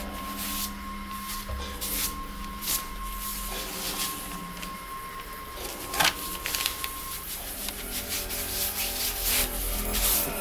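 Repeated rubbing strokes of hand-wiping ink across an inked etching plate, with one sharp tap about six seconds in.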